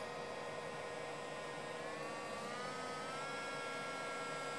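Omron blood pressure monitor's cuff-inflation pump whirring steadily as it pumps up the arm cuff, its pitch rising a little about two seconds in.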